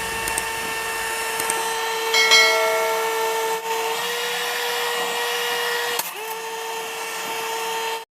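Small electric fan motor of a homemade air cooler running with a steady high whine. About six seconds in the whine drops out for a moment and then comes back up to speed.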